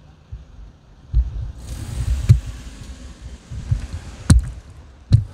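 Handling noise from a phone carried while walking: irregular low thumps and rumble, with sharp knocks about two, four and five seconds in, over a steady hiss that starts about a second and a half in.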